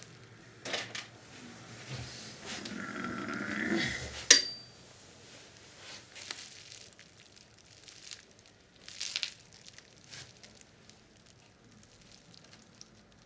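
Small clicks and taps of tools working on the plastic and metal parts of a cassette deck mechanism, with one sharp, ringing click just after four seconds in and a brief whine just before it.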